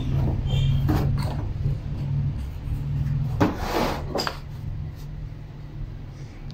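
Steel bar clamps clacking and knocking against the wooden frame as they are set in place and tightened, a few sharp knocks with a short clatter about three and a half seconds in. A steady low hum runs underneath and fades about four seconds in.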